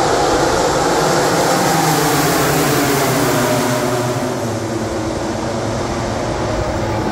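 MotoGP racing motorcycles running at high revs on the circuit, a loud continuous engine sound whose pitch bends slowly down as the bikes go by.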